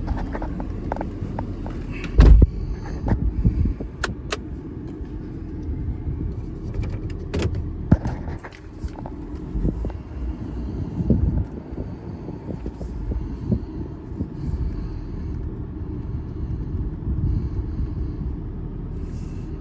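6.7-litre Power Stroke V8 diesel of a Ford F-350 idling, heard from inside the cab as a steady low rumble, with scattered clicks and knocks; the loudest is a thump about two seconds in.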